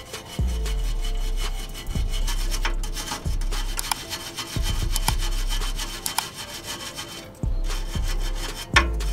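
Steel wire brush scrubbing back and forth over the rusty studs on the catalytic converter's exhaust flange, a rough scratching in irregular strokes, to clear off the rust before new hardware goes on.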